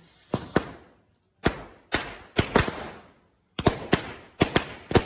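Small Diwali firecrackers going off one after another in sharp, irregular bangs, about a dozen in five seconds, each with a short echo.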